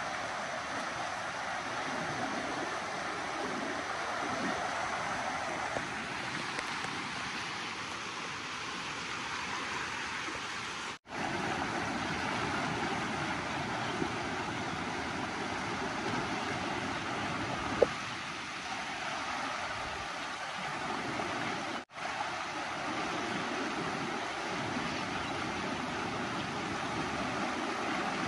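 River rapids rushing over granite boulders: a steady hiss of running water, cut off for a split second twice. A single sharp click sounds about eighteen seconds in.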